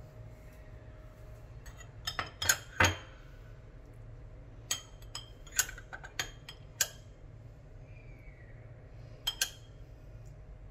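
Metal spoon clinking against a glass jar and a stainless steel bowl while scooping pickles out and spooning them onto the fish: sharp clinks in a few short clusters, the last a quick pair near the end.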